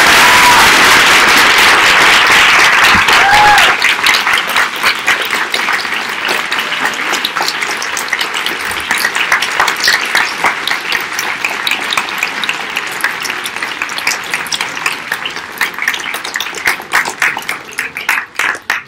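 Large lecture-hall audience applauding, a dense loud ovation with a couple of short whoops in the first few seconds, then thinning to scattered individual claps that die away near the end.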